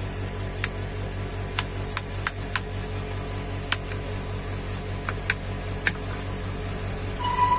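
Sharp, irregular clicks and taps from a smartphone and its parts being handled and opened during repair, over a steady low electrical hum. Near the end a cat starts to meow.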